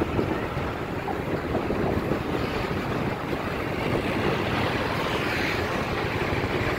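Steady wind rush buffeting the microphone on a moving motorbike, with road and traffic noise underneath.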